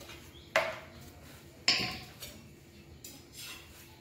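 Sharp slaps and knocks of paratha dough being patted and pressed on a floured wooden board, two loud strikes about half a second and a second and a half in, followed by a few lighter taps.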